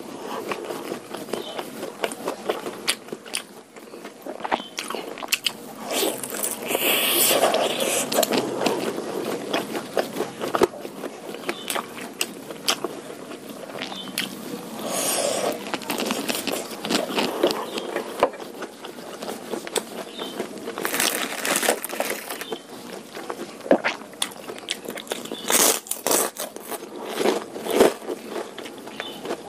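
Close-miked eating: chewing and biting into a meal of curry noodles, beef meatballs and bird's eye chillies, with many quick wet clicks and mouth sounds and a few louder crunchy bites.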